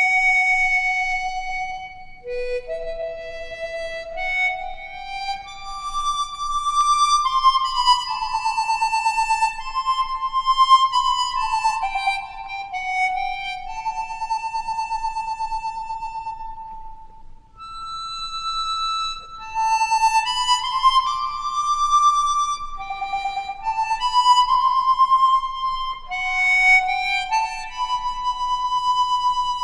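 Harmonica playing a slow solo melody, one note at a time, with a wavering vibrato on the longer held notes and a brief pause a little past halfway.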